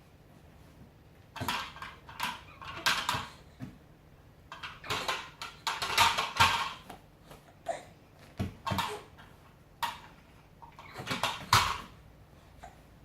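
Hard objects clattering and knocking together in irregular bursts, starting about a second in, with several louder bangs among them.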